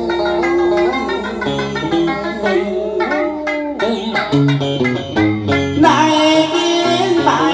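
Cải lương instrumental accompaniment: guitar and đàn sến (two-string Vietnamese lute) playing a melodic interlude, with notes that bend and slide in pitch.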